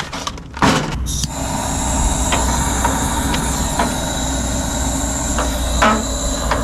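Compressed firewood being lit in a wood stove: a knock about half a second in, then a steady hissing roar with scattered crackling ticks.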